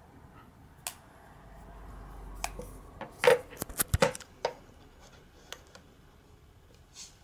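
Two iPod touch players being handled and set down on a wooden desk: a light click about a second in, then a quick cluster of sharp taps and clicks in the middle, two of them loud.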